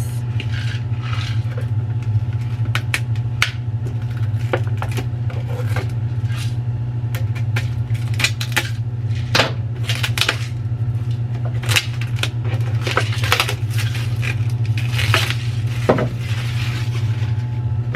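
Instant ramen packaging and seasoning packets being handled and opened: scattered crinkles, clicks and light clatter over a steady low hum.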